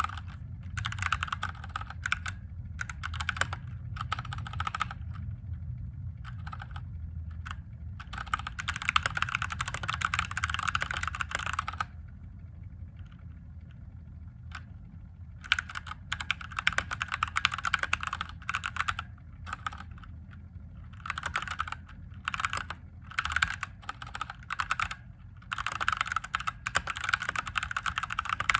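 Typing on a mechanical keyboard with Gateron Yellow linear switches: runs of quick keystroke clicks with short breaks and one longer pause near the middle, over a faint low hum.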